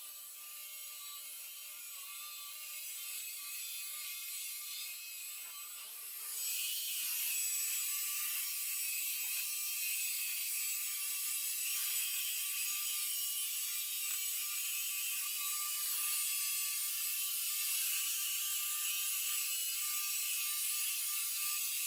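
Robot vacuum cleaner running: a steady high hiss with a thin whine, getting louder about six seconds in.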